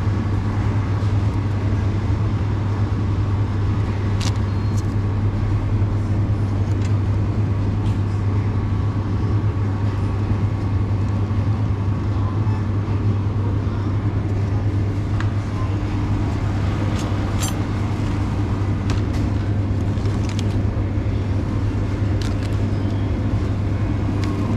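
Steady low hum of supermarket refrigeration machinery, with a few faint clicks.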